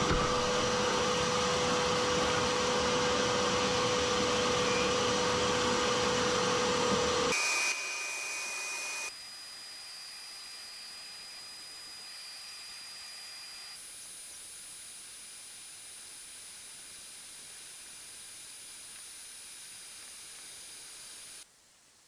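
A high-speed electric motor runs at a steady pitch under a loud rushing hiss. After about seven seconds it cuts off abruptly, leaving a much quieter steady hiss with a faint high whistle.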